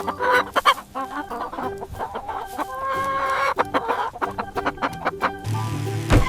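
Chickens clucking in a run of short, repeated calls, over light background music.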